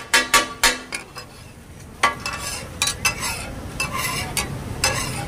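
Metal spatulas clanking and scraping on a large flat griddle (tawa): three quick ringing strikes at the start, then scattered strikes from about two seconds in. Under them, chops sizzle as they fry in oil.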